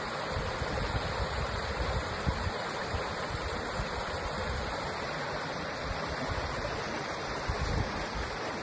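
Steady rush of a small stream's running water, with wind buffeting the microphone in uneven low rumbles.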